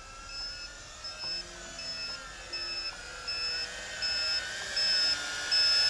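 JJRC H16 quadcopter's low-voltage alarm buzzer beeping steadily, about once every three-quarters of a second: the battery is running low. Under the beeps the quadcopter's brushed motors whine with a wavering pitch, and both get louder toward the end.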